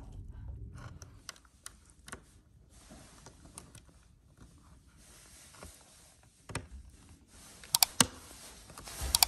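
Faint, scattered small clicks and taps of an optical audio cable plug being handled and pushed into the connector panel on the back of a soundbar, with a few sharper clicks about two-thirds of the way through and near the end.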